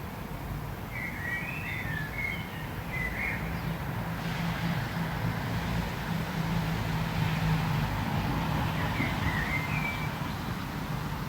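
Rumble of jet aircraft engines at an airport, swelling about four seconds in, with birds chirping briefly about a second in and again near the end.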